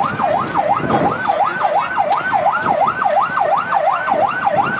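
Vehicle siren in a fast yelp, one wailing tone rising and falling about three times a second. It comes from a security vehicle clearing the road ahead of a presidential motorcade.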